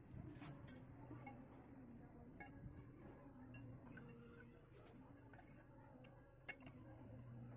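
Faint clinks and taps of metal pipes being picked up and fitted together, a scattering of light metallic clicks with the sharpest about a second in and another near the end.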